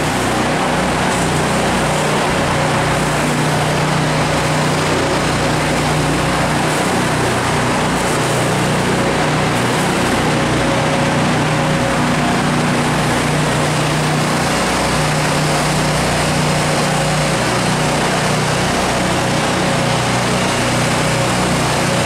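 Steady drone of running machinery with a constant low hum, unchanging throughout.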